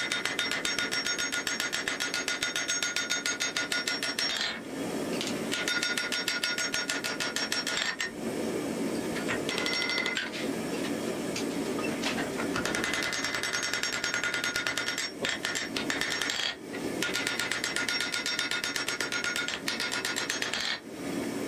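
Hand hammer striking a red-hot axe head on a steel anvil in fast, steady runs of blows, the anvil ringing with each strike. The hammering stops briefly a few times between runs.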